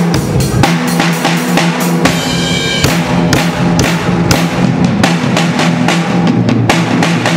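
Pearl acoustic drum kit played in a steady, fast rhythm: bass drum, snare and cymbal strokes, about four to five a second, with a brief lighter stretch about two seconds in.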